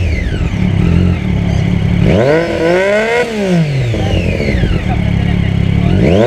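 Triumph Daytona 675 three-cylinder sport bike engine with an Arrow exhaust idling, then revved once, the pitch rising for about a second and falling back to idle, with another rev beginning near the end.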